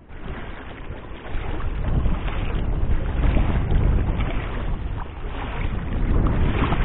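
Wind buffeting the microphone: a rough, low, fluttering noise that gets louder about a second in.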